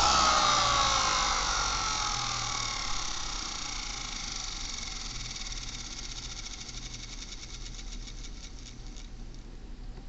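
3D-printed ten-bladed centrifugal blower fan and its small 18 V DC motor coasting down after the power is cut. The whine falls in pitch and fades away over several seconds, with faint ticking as the fan slows near the end.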